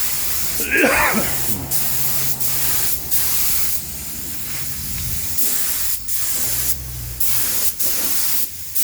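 Compressed-air spray gun spraying primer in passes, a steady high hiss that stops briefly and restarts several times as the trigger is released and pulled again. A short gliding sound comes about a second in.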